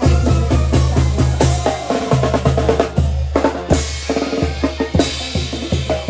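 Live carnival band music with the percussion to the fore: rapid drum and cymbal strokes over low bass notes. Bright cymbal crashes come a little past halfway and again about five seconds in.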